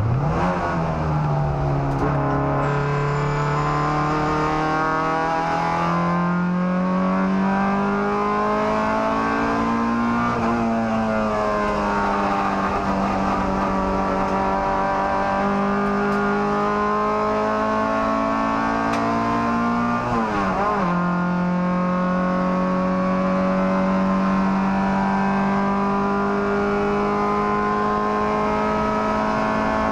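Toyota Starlet EP91 race car's 1.3-litre 4E-FE four-cylinder engine at racing revs, heard from inside the stripped, roll-caged cabin. The engine note climbs slowly over the first ten seconds and holds high. It dips sharply and briefly about twenty seconds in, then runs steadily at high revs.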